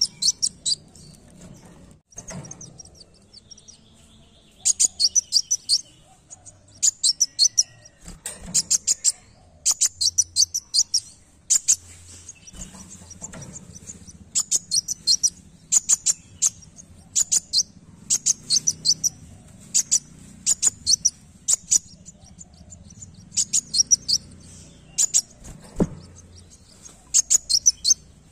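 Kolibri wulung sunbird singing: bursts of rapid, high-pitched chirping trills, each burst about half a second to a second long. The bursts repeat every second or two, with a longer pause between about two and four and a half seconds in.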